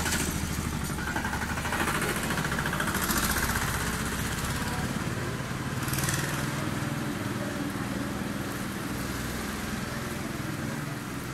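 An engine running steadily in the background, with a few brief hisses over it.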